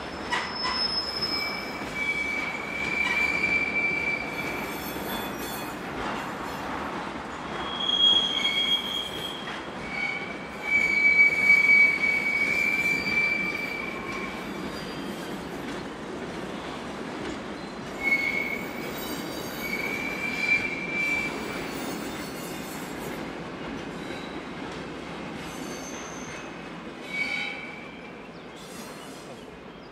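Freight train of car-carrier wagons rolling past, its wheels squealing on and off in high, thin tones over the steady rolling noise. The squeal is loudest around the middle, and the train fades away near the end.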